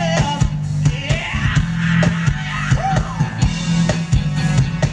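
Funk band playing live through the stage PA: drum kit keeping a steady beat under an electric bass line and guitars, with a wavering melody line on top.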